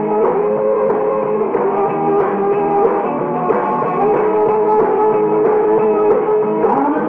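A rock and roll band playing live, with electric guitars and drums and long held notes.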